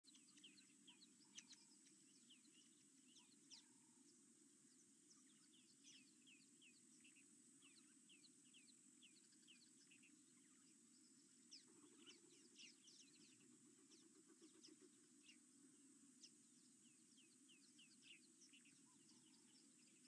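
Faint background birdsong: many short, high chirps from several birds, overlapping in quick succession, over a steady low outdoor background noise.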